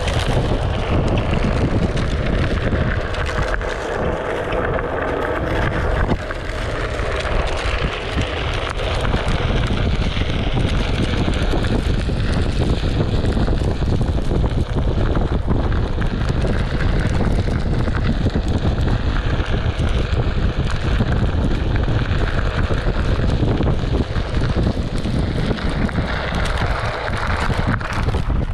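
Steady wind noise buffeting the microphone while riding a Onewheel XR off-road, with a continuous low rumble.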